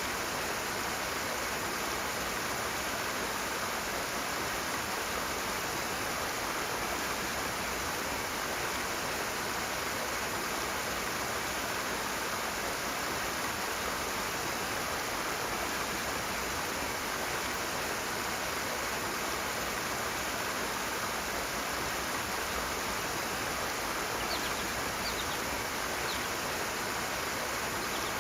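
Rushing stream water, a steady even rush with no change in level. A few faint high chirps, likely a bird, come near the end.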